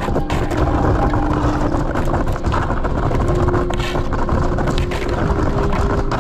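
A Dagger Katana kayak's bow breaking through and pushing aside thin ice: a continuous crackling and grinding, dense with sharp cracks.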